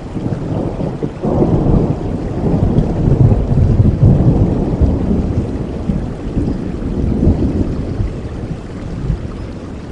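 Rolling thunder over steady rain: a deep rumble swells about a second in, peaks a few seconds later and slowly dies away.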